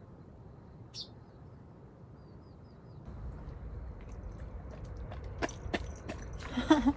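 Irregular close-up crunching clicks, like food being chewed, start about halfway through over a low rumble. A brief pitched sound near the end is the loudest moment, and a short bird chirp comes about a second in.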